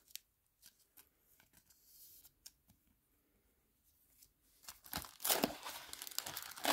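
A few faint clicks of a trading card and sleeve being handled, then, about five seconds in, the wrappers of Topps Heritage baseball card packs crinkling and rustling, louder, as the packs are handled in the hobby box.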